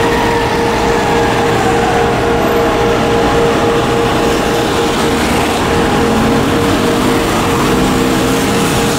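Fire apparatus diesel engine running steadily at the station door, from a 1998 American LaFrance/LTI aerial ladder truck, with a steady hum under it. A siren's wail winds down and fades out over the first few seconds.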